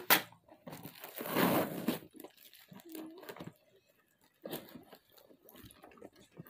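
Cardboard box being cut and torn open: packing tape tearing and cardboard crinkling. A sharp click near the start, the longest and loudest tearing about a second in, then smaller scattered rustles.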